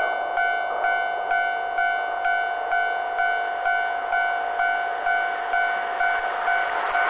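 Railway level-crossing warning bell ringing, a steady electronic ding repeating about twice a second. It signals a train approaching the crossing.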